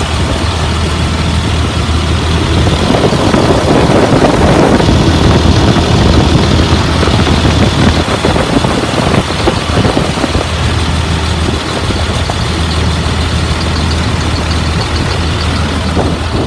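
2004 Blue Bird All American school bus engine idling steadily, fully warmed after running for almost an hour without overheating. A louder, rougher noise rides over the idle from about three to eight seconds in.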